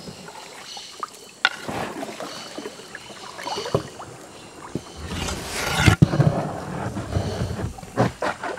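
Wooden paddles dipping and pulling through water beside a dugout canoe, with scattered knocks of paddle against the hull and a louder splashing swish about five seconds in.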